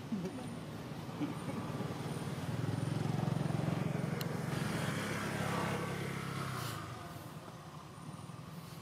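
A motor vehicle's engine passing by, swelling from about two and a half seconds in and fading away by about seven seconds.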